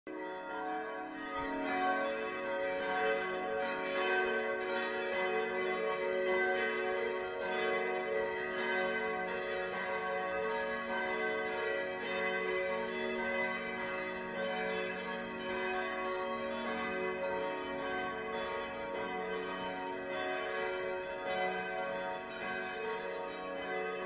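Church bells ringing continuously. Strokes follow one another in quick succession, and their deep tones ring on and overlap without a pause.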